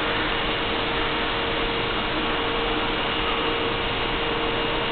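Steady hum and hiss of a railway station platform, with a constant low tone running underneath and no distinct events.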